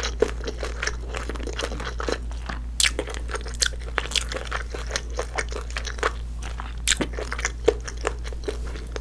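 Close-miked chewing of a mouthful of cream pasta, with lips closed: a steady run of small, irregular wet clicks and smacks from the mouth.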